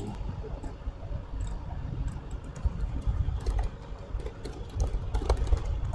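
Computer keyboard typing and mouse clicks: scattered light clicks, thicker in the second half, over a low steady rumble.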